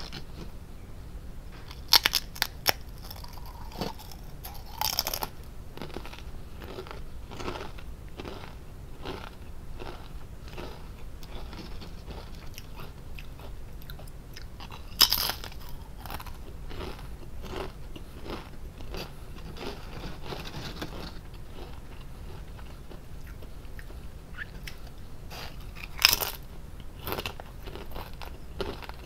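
Lay's potato chips being bitten and chewed. There are four loud crisp crunches of bites, about 2, 5, 15 and 26 seconds in, with quieter crunching chews in between.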